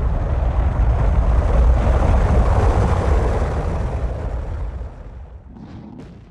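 Rocket launch roar: a loud, deep rumble with a crackling rush over it, fading out over the last couple of seconds.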